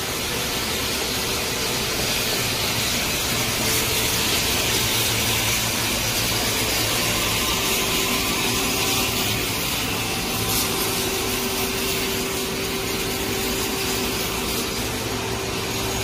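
Amada H-700II horizontal bandsaw running, its band blade cutting through a large round steel bar: a steady hiss over a low machine hum.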